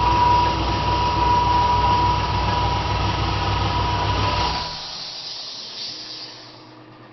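A machine running with a steady low drone and a constant high whine, which cuts off about four and a half seconds in.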